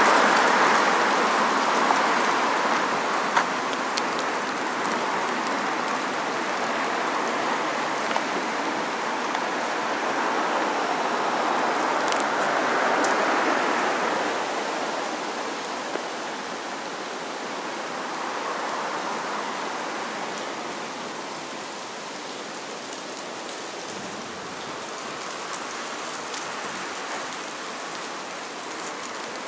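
Outdoor street ambience on a residential street: a steady rushing noise that is loudest at the start, swells again about halfway through, then slowly fades.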